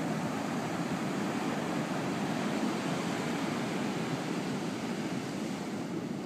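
Ocean surf breaking on a sandy beach: a steady, continuous wash of wave noise with no distinct single crash.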